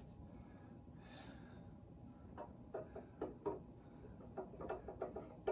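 Quiet handling sounds: a soft breath about a second in, then light, irregular clicks and taps from about two and a half seconds in as parts of a large resin bust are handled and fitted.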